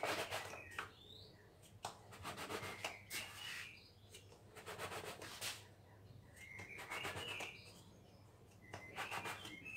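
Round plastic dough cutter pressed and turned into semolina-dusted dough on a worktop: gritty rubbing and scraping in about five short spells, roughly one every two seconds, with short high chirps mixed in.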